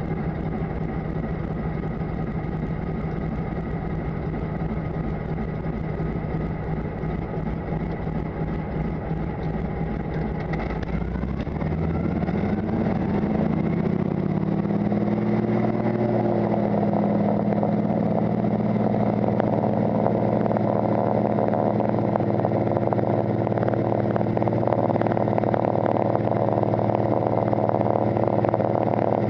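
De Havilland Beaver floatplane's nine-cylinder radial engine and propeller heard from inside the cockpit. It runs at low power at first, then is opened up about eleven seconds in: the pitch climbs over a few seconds and then holds steady and louder at takeoff power as the plane runs across the water.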